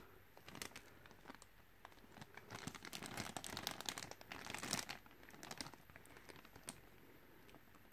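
Clear plastic zip-lock bag crinkling as it is handled, with faint crackles, busiest about halfway through and thinning out toward the end.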